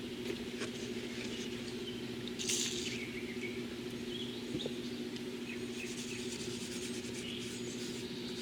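Faint outdoor background: birds chirping, a steady low hum, and a brief rustling scrape about two and a half seconds in.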